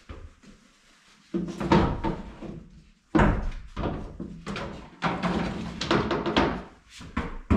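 CNC-cut wooden subfloor frame sections knocking and clattering against a Sprinter van's ribbed steel cargo floor as they are laid in and pushed into place. A series of thunks starts after about a second of quiet.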